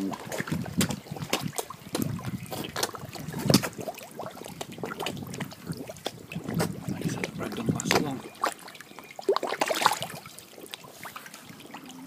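Koi carp slurping and sucking at floating slices of bread at the pond surface: a constant irregular run of wet smacking clicks and small splashes.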